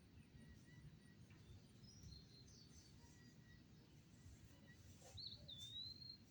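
Faint bird chirps over a quiet outdoor background, with one clearer whistled call, swooping down and then held, near the end.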